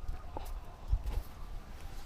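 Soft low thuds and rustling from a camera strapped to a walking cat, its steps and body movement knocking the microphone, with the heaviest thud about a second in.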